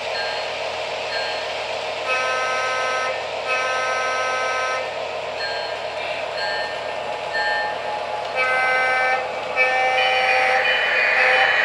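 Sound-equipped Lionel O gauge model diesel locomotive's electronic chord horn sounding a series of about six blasts of varying length, the last one long near the end, over the steady running noise of the train rolling on the track.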